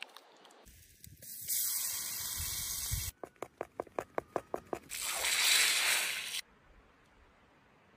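Hot melted butter sizzling in a small copper pan set on embers, then a quick even run of about ten sharp crackles, then a loud hiss as the hot spiced butter is poured over a bowl of soup.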